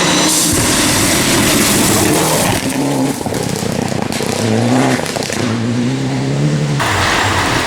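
Rally car engine at full throttle, its pitch climbing and dropping again and again with gear changes and lifts. The sound changes abruptly near the end.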